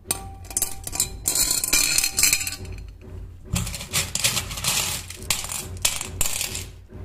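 Coloured aquarium pebbles clinking and clattering against the glass of an empty fish bowl and against each other as they are put back in by hand, in two spells of dense clatter with a short break in between.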